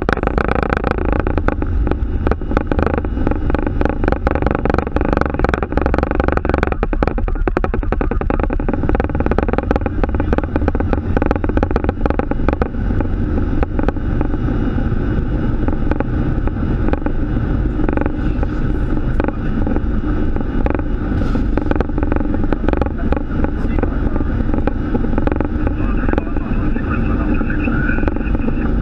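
Boeing 737 flight-deck noise at takeoff and initial climb: a loud, continuous rush of engine and airflow noise. For the first dozen seconds it is broken by rapid rattling knocks, then it settles into a smoother steady rush.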